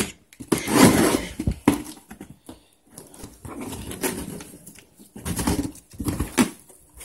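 Scissors cutting through the taped seam of a cardboard box, then the cardboard flaps scraping and rustling as they are pulled open, in irregular bursts with short pauses between.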